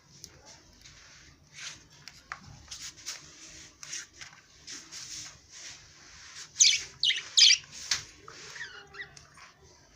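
Parrots chirping and squawking in short, harsh calls, with a burst of the loudest calls about two-thirds of the way through.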